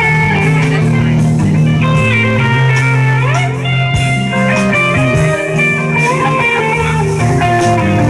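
Live band playing a blues-rock number with guitar out front.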